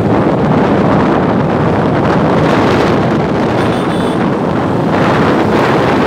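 Heavy wind buffeting the microphone of a camera carried along a road, a steady loud rush with a low rumble underneath from the moving vehicle.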